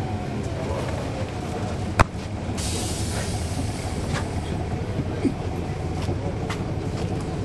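Cummins ISL9 diesel engine of a NABI 40-foot transit bus running steadily, heard from the back seats inside the cabin. A sharp knock about two seconds in is followed by a brief hiss of air, with a few lighter rattles later.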